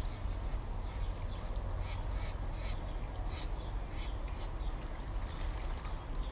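Birds calling: a run of short, harsh calls, a few to the second at times, over a steady low rumble.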